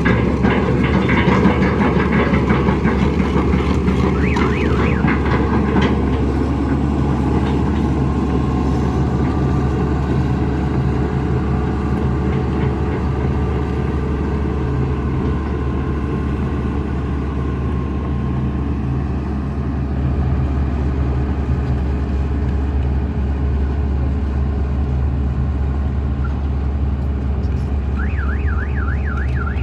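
Heavy diesel earthmoving machinery running steadily under load, busier and a little louder in the first few seconds. Near the end a warbling reversing alarm starts up.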